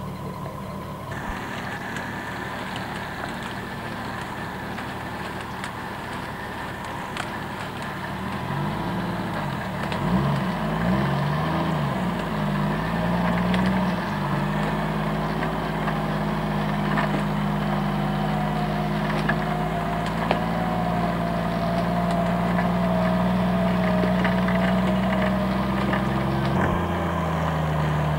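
Off-road Jeep engine running under load as the Jeep is hauled up a steep muddy slope on its winch cable. The pitch wavers up and down about a third of the way in, then holds steady and creeps up, and drops suddenly just before the end.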